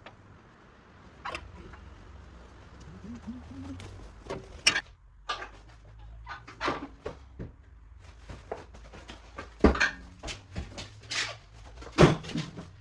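Irregular footsteps, scuffs and knocks, as when a metal snowplow part is carried and handled, with two louder thumps near the end.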